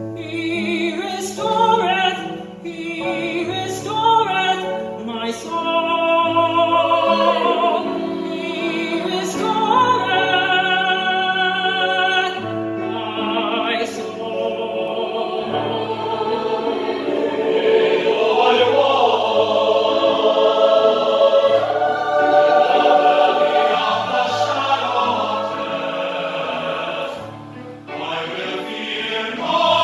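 A male soloist singing a sacred choral piece with vibrato, backed by a choir.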